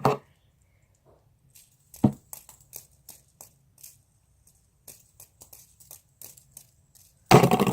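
Light, irregular clicks and taps of fidget spinners being handled and set down on a table, with one louder knock about two seconds in and a loud, harsh burst of sound near the end.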